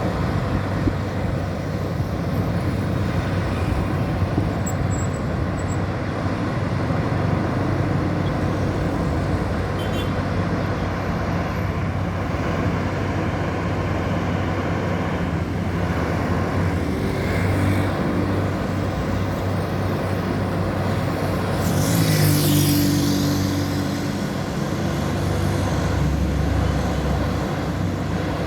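Road traffic dominated by a heavy truck's engine running steadily. About three-quarters of the way through comes a louder surge with a hiss.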